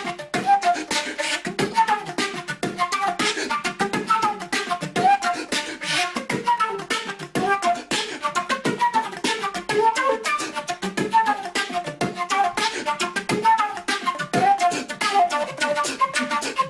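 Flute beatboxing: a flute melody of quick short notes played over rapid percussive beatbox sounds made with the mouth into the instrument, in a steady fast rhythm.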